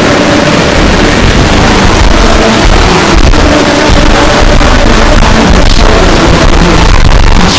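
Music boosted to extreme loudness and heavily distorted into a harsh wall of noise, with strong bass and faint held chords underneath.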